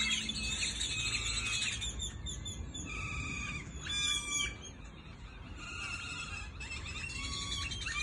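Many birds chirping at once: a dense, overlapping chorus of short chirps and calls, with a louder cluster of calls about four seconds in.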